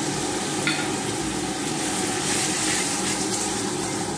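Onion, tomato and ginger-garlic spice masala sizzling steadily in mustard oil in a kadai while a metal spatula stirs it, the masala being fried down (kosha).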